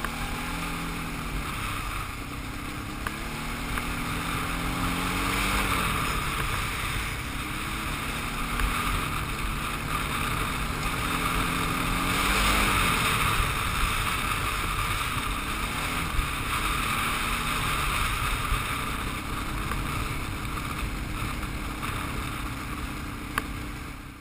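Quad bike engine running under way on a dirt track, its pitch rising and falling again and again as it accelerates and eases off, with steady wind rushing over the helmet-mounted microphone.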